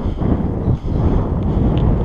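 Wind buffeting the microphone of a GoPro on a moving bicycle: a loud, uneven rush that dips briefly about a second in.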